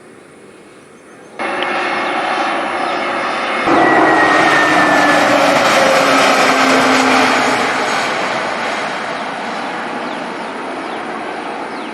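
Jet airliner taking off, its engines at full power: the noise cuts in suddenly about a second and a half in, jumps louder just before four seconds with a few slowly falling tones as it passes, then slowly fades.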